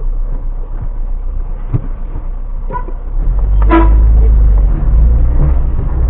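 A car being driven, its low road and engine rumble growing louder about three seconds in, with a short horn toot just before four seconds.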